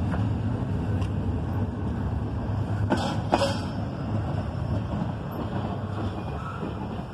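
Double-stack intermodal well cars rolling past on steel wheels: a steady low rumble with two sharp clacks about three seconds in, fading as the last car goes by.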